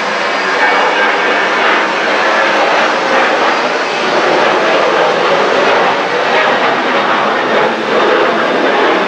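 Boeing 737-800 airliner's CFM56 turbofan engines at takeoff/climb thrust: a loud, steady jet roar as the plane climbs out overhead.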